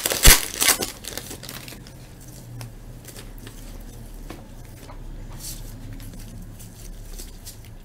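A baseball card pack wrapper crinkling loudly as it is torn open in the first second or so, followed by quieter rustling and small clicks of the cards being handled.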